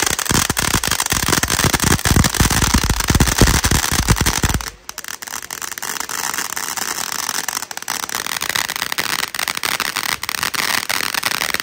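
Firecrackers going off in a rapid, dense crackling string for about the first five seconds, then a lighter crackle and hiss carries on.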